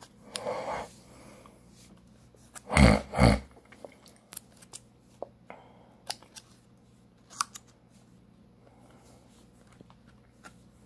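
Fingers picking and scratching at the foil lid of a plastic pudding cup, giving scattered small clicks and crinkles. Two loud handling noises come close together about three seconds in.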